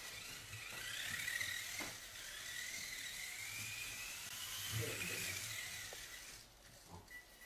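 Small electric motors of Losi Micro-T RC trucks whining, the pitch rising and falling as the throttle is worked, over a faint steady high tone, with a few light knocks; the whine dies away near the end.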